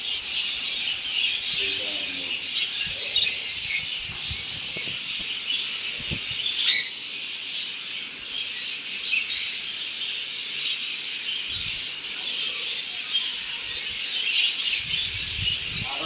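A colony of conures in an aviary chattering, with many overlapping high chirps and squawks that never let up.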